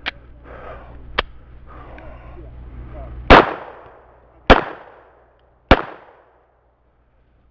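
Three shots from a Springfield XDm 5.25 .45 ACP pistol, about a second and a quarter apart, each with a short ringing tail, the first the loudest. Two fainter sharp clicks come before them.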